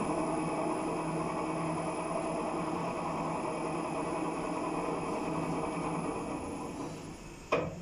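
Lift running in its shaft: a steady mechanical rumble with a low hum that fades over the last couple of seconds, then a single sharp clunk near the end.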